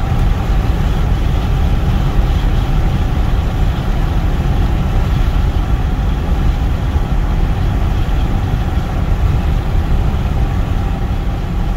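Steady engine and road noise heard inside a car cruising on the highway, an even low rumble with no change in pitch.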